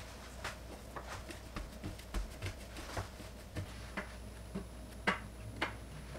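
Thin raw potato slices being laid one by one onto a cotton cloth over a baking tray: a string of soft, uneven taps, a few a second, over a faint steady hum.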